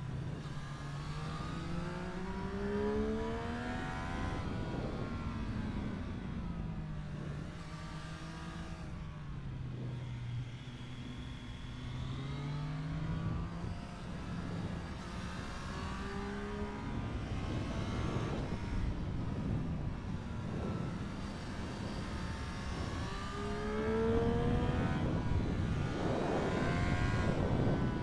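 Triumph Street Triple 765 RS inline-three engine under throttle while riding. Its pitch climbs and falls several times as it accelerates and backs off.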